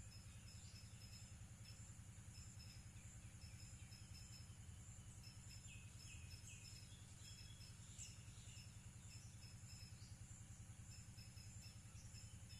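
Faint outdoor ambience: insects keep up a steady high-pitched drone with rows of short repeated chirps, and birds call briefly now and then, loudest around the middle, over a low steady hum.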